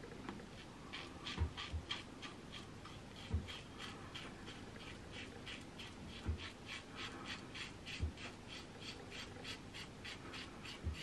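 PAA La Criatura slant double-edge safety razor scraping through lathered stubble in quick short strokes, about three or four a second, with a few dull low thumps in between.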